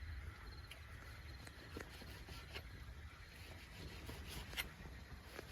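Quiet outdoor night ambience: a low steady rumble with a few faint clicks and taps.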